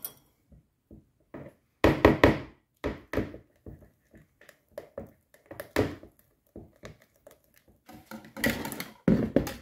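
A kitchen utensil stirring a thick quark and yogurt cream in a bowl, knocking and tapping irregularly against the bowl. The loudest knocks come about two seconds in and again near the end.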